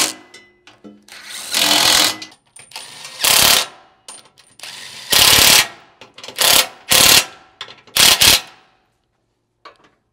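Cordless impact wrench with a socket running bolts home in a string of short bursts, some about a second long and some brief, with pauses between them.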